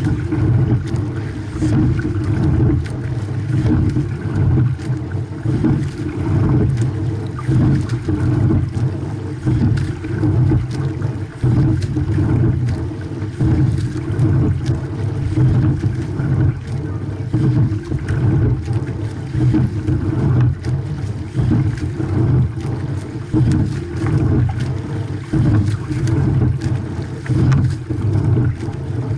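Water rushing along the hull of a racing double scull under way, with wind on a deck-mounted microphone; the noise swells and eases about every couple of seconds with the rowing stroke, with small knocks from the oars and rigging.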